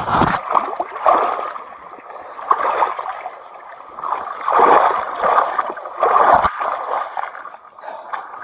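Irregular sloshing and splashing of water and mud as a person wades out of a shallow marsh carrying a child, mixed with rubbing from the body camera pressed against the child's bare back. A sharp knock right at the start.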